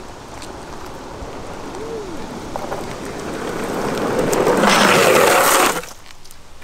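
Longboard wheels rolling on asphalt, growing louder as the board approaches. About four and a half seconds in, a loud hissing skid lasting a second and a half as the urethane slide wheels break loose sideways in a crouched, hands-down slide. It cuts off suddenly.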